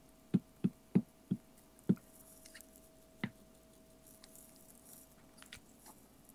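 A run of light knocks: five quick taps in the first two seconds, then one more a little after three seconds in, with a few fainter ticks later and a faint steady hum.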